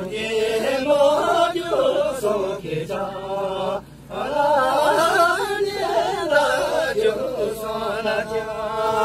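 A group of voices chanting a Tibetan dance song together, in two long sung phrases with a short break about four seconds in.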